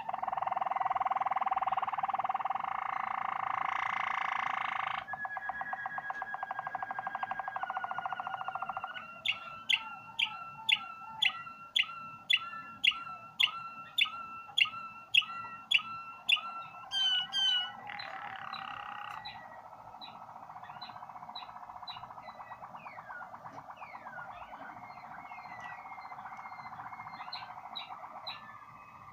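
A songbird singing a long, varied song: warbling phrases, a fast trill, then a run of loud repeated notes, nearly two a second, followed by softer trills.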